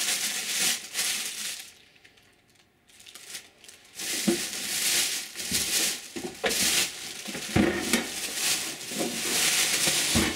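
Plastic packing bag crinkling and rustling as it is pulled off a welder. It pauses briefly about two seconds in, then resumes, with a couple of low knocks in the second half.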